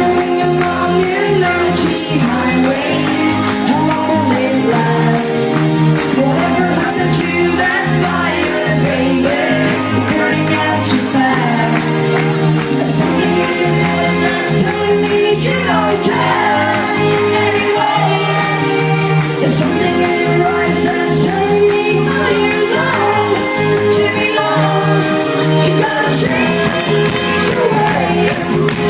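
A live rock band playing a song with a lead singer, a driving repeated bass line under the vocals.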